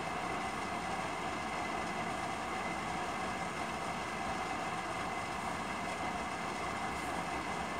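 Steady whirring noise from a running machine, even in level, with a faint high whine.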